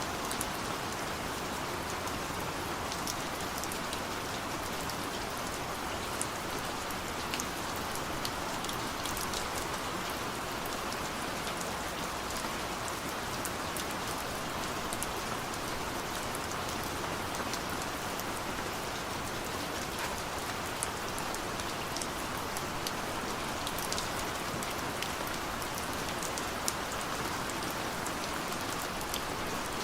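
Steady rain falling on a surface, an even hiss with scattered sharp drop ticks.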